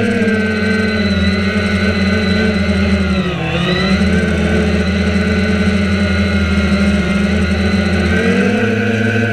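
Small drone's propellers whirring in flight: a whine of several tones that drifts in pitch, dipping and recovering about three and a half seconds in.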